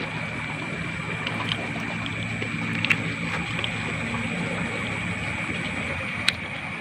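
Steady outdoor background at night: a low hum that stops about six seconds in, under a steady high hiss, with a few faint clicks.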